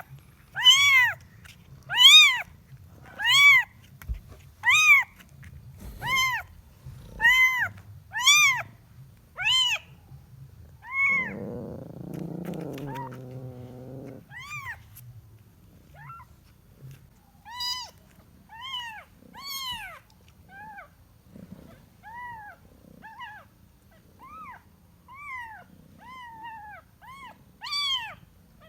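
A kitten meowing over and over, short high calls that rise and fall, about one a second and loud at first, then softer and more spaced out. These are the calls of a kitten looking for its mother. A lower, longer, rougher sound runs for a few seconds near the middle.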